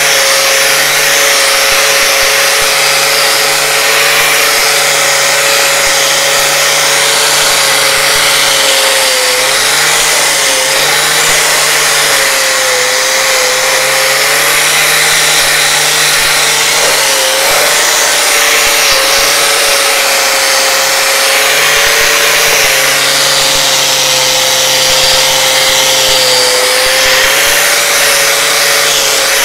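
Angle grinder with a crimped wire cup brush scrubbing rust off a tractor flywheel face: a steady high motor whine over a loud scratchy hiss of wire on metal. The whine dips briefly now and then as the brush is pressed harder into the metal.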